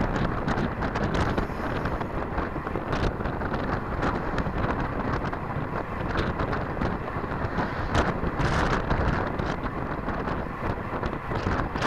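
Wind rushing over the microphone of a camera mounted on a moving road bicycle: a steady buffeting noise with scattered small knocks.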